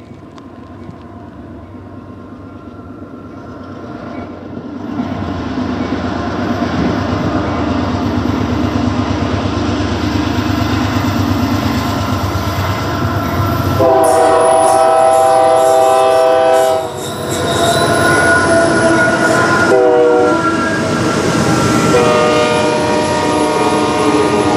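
Diesel freight locomotives (a GE AC44CW leading a CSX ES44DC and C40-8W) approaching, their engine rumble building, then the lead unit's air horn sounding two long blasts, a short one and a long one, the last blast lower in pitch as the locomotives pass. Near the end the double-stack cars start rolling by.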